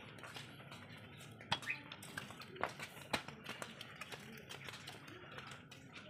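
A wet bird moving about in a metal cage: irregular sharp taps and clicks of its feet on the perch and cage bars, the loudest about one and a half and three seconds in.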